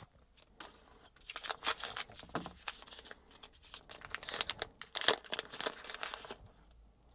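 A small clear plastic bag crinkling and being pulled open by hand, with irregular crackles that stop shortly before the end.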